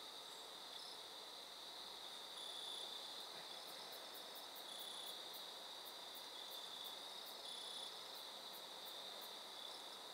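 Crickets and other insects chirping in a steady, faint, high-pitched chorus that swells and fades every second or so, with a run of very high, quick ticks through the middle.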